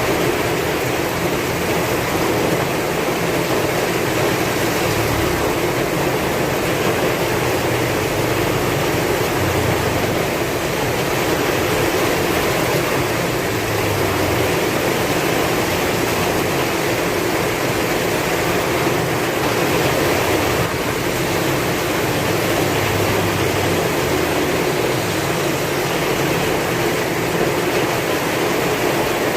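Heavy rain falling steadily with strong wind: a dense, even hiss, with a low rumble that swells now and then.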